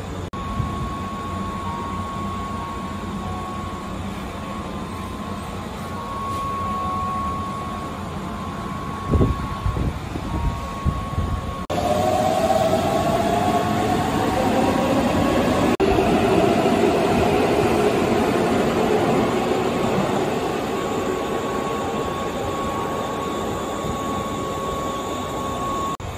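Electric train sounds. First a steady hum with a faint high tone inside a standing car, with a few knocks about nine seconds in. Then, after a sudden change, a louder train whine that rises in pitch, as a train's traction motors accelerate.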